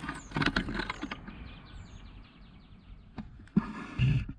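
Handling noise of a camera working its way up inside a hollow sycamore trunk: irregular rustling scrapes and knocks against the bark, with a dull bump about four seconds in.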